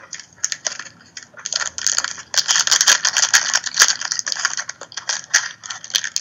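Foil wrapper of a trading card pack crinkling and tearing as it is handled and ripped open by hand. It is a dense crackle that grows louder about two seconds in.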